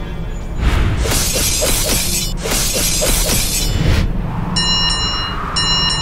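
Cartoon shattering sound effects over background music: two long crashing, breaking noises, the first about a second in and the second right after it. Near the end, ringing tones at fixed pitches start in pulses of about a second, like a railroad crossing warning bell.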